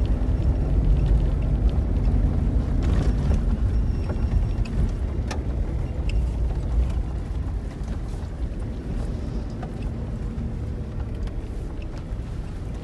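Steady low rumble of a car driving on a rough unpaved dirt road, heard from inside the cabin, with a few brief knocks and rattles from the bumps.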